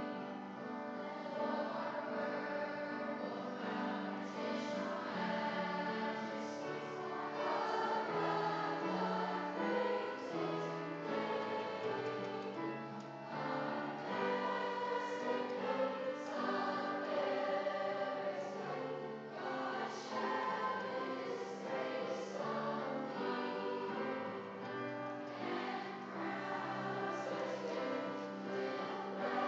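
A school chorus singing, many voices together holding and moving through sustained notes.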